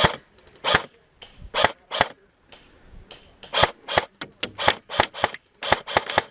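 Airsoft guns firing, a series of sharp single cracks. They come about once a second at first, then faster and more irregularly from about three and a half seconds in.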